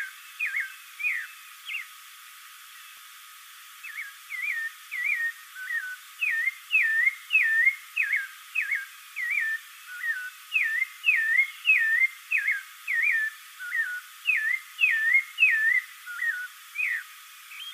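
Spectacled thrush giving a long series of short whistled notes, each dipping then rising in pitch, about two a second, with a pause of about two seconds near the start.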